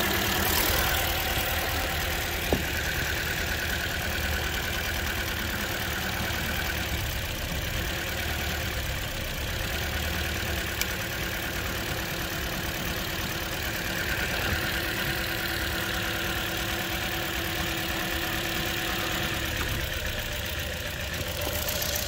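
A 2008 Toyota Corolla ZRE152's four-cylinder engine idling roughly with a misfire, one cylinder barely contributing, while the ignition coils are unplugged one at a time to find the weak cylinder. A short click about two and a half seconds in.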